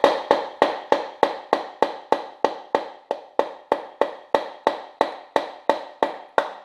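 Steady light taps, about three a second, driving a piston down its bore in a Chevrolet 350 small-block V8 so that the connecting rod comes up onto the crankshaft journal. The taps grow gradually fainter.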